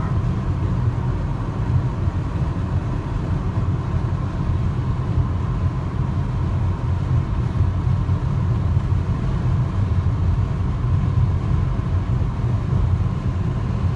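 Steady low rumble of a car cruising at highway speed, heard from inside the cabin: tyre and road noise with the engine underneath, and a faint steady whine above it.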